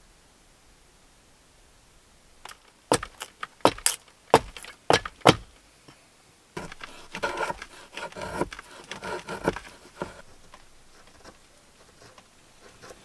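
Handwork on a wooden board: a quick series of about eight sharp knocks on wood, then a few seconds of scraping and rasping.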